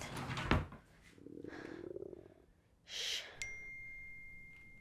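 A phone notification chime: a single clear ding about three and a half seconds in that rings on as it fades. It comes after handling noise, a bump and a quick breath.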